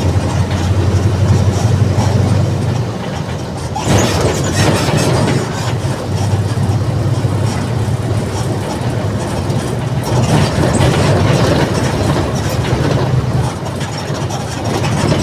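Diesel engine of a Mercedes-Benz OF-1722M city bus running under way, with a strong low drone and a rattling clatter over it. The engine note eases off about three seconds in and picks up again about four seconds in.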